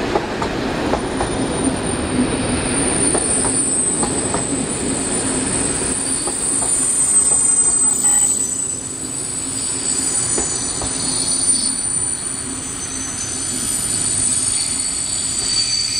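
Passenger train coaches rolling past and braking to a stop, their wheels clicking over the rail joints in the first half. A high, steady squeal of the brakes sets in about a second in and grows stronger in the second half.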